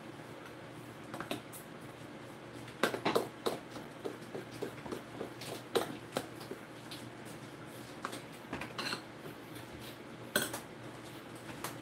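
Cornbread batter being stirred by hand in a mixing bowl: a utensil clinking and scraping against the bowl at irregular intervals, with louder knocks about three seconds in and near the end.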